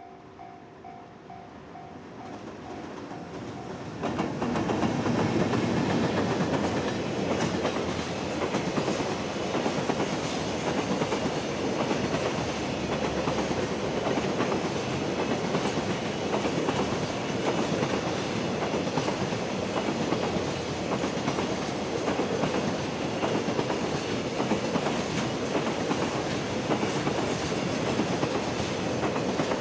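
Freight train pulled by an electric locomotive approaches, then passes close by. The wagons' wheels clatter over the rail joints in a fast, continuous clickety-clack. A steady tone stops about four seconds in, just as the train arrives.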